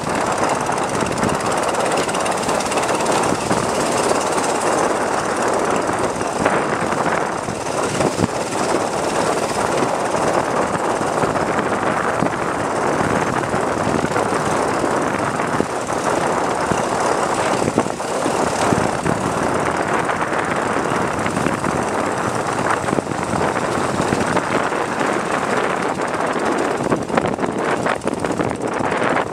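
Engine of a narrow wooden river boat running steadily under way, a loud continuous drone mixed with the rush of water and wind.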